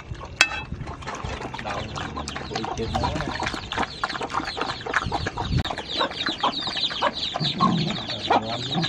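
Dogs lapping and chewing a watery rice-and-fish feed from a metal bowl, a fast, dense run of wet clicks, with chickens clucking.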